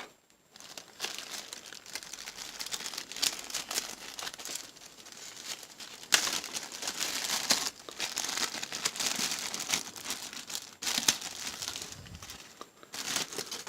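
Packaging crinkling and tearing as a part is unwrapped by hand, in irregular stretches of rustling with louder bursts partway through and near the end.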